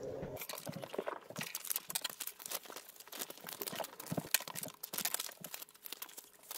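Sheets of paper being handled and moved on a table, rustling and crinkling with a dense run of small irregular crackles.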